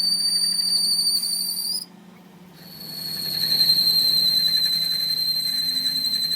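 A steady, high-pitched whistling whine from workshop machinery. It cuts off about two seconds in and starts again after a short pause, slightly lower in pitch, over a faint low hum.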